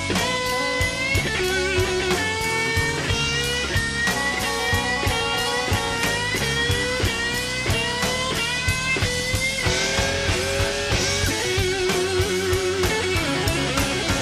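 Live slow blues: a Stratocaster-style electric guitar plays a lead solo over drums and bass, repeatedly bending notes up in pitch, then moving to wavering held notes with heavy vibrato about two-thirds of the way in.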